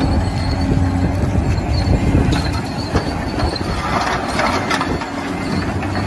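Large Caterpillar hydraulic excavator working: its diesel engine runs with a steady low hum. Around four seconds in there is a rattling clatter as the bucket tips dirt and rocks into a dump truck bed.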